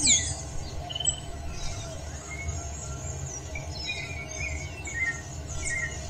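Dawn chorus of several birds, short chirps and whistles overlapping, with one loud whistle sweeping down in pitch right at the start. A low rumble runs underneath.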